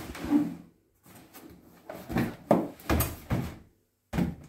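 Cardboard box handled and turned over on a workbench: a series of short knocks and scrapes of cardboard, the loudest between two and three and a half seconds in, with one more knock near the end.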